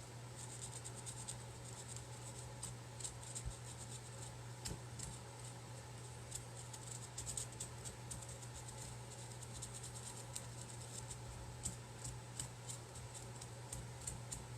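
Black Sharpie marker coloring in a shape with quick, scratchy back-and-forth strokes in bursts, over a steady low hum.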